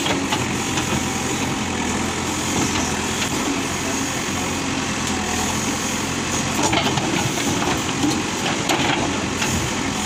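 Backhoe loader's diesel engine running steadily while the rear backhoe digs, with a few knocks from the bucket and arm working in earth and stones in the second half.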